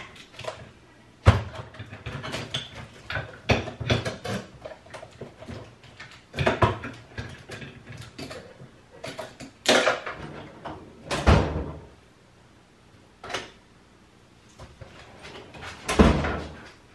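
Tools and small metal parts clattering, knocking and scraping as they are handled and rummaged through, in irregular bursts with a few sharper knocks.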